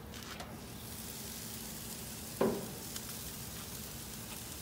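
Chicken breasts sizzling on the grates of a gas grill, a steady hiss that grows louder as the lid is lifted open. A single dull thump about halfway through as the lid comes to rest fully open.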